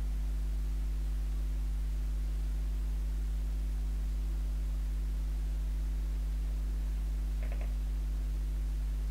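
Steady low electrical mains hum, a constant buzz with no change in level.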